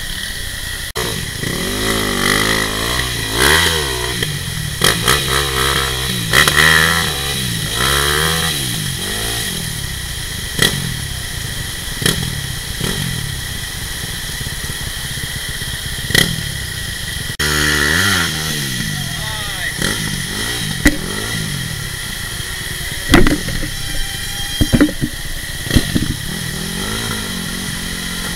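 Dirt bike engines revving in uneven bursts, pitch rising and falling, while riders work their bikes up a steep muddy bank out of a stream. Sharp knocks and clacks come through now and then, the loudest near the end.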